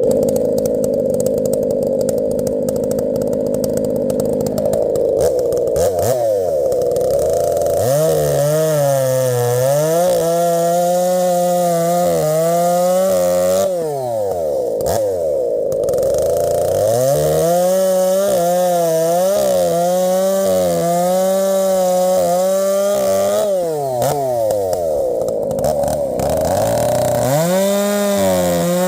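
Husqvarna 371XP two-stroke chainsaw, running with an aftermarket pipe, cutting through small sugar maple at full throttle. Its note sags and wavers under load in the cut. It drops back and revs up again twice, about halfway through and near the end.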